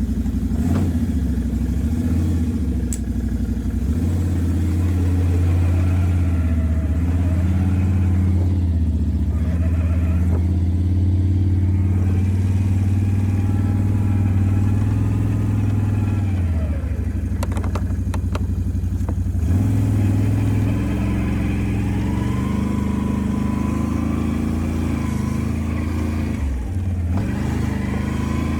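A four-wheeler's (ATV's) engine running while it is driven, a steady low hum whose pitch rises and falls a few times as the throttle changes.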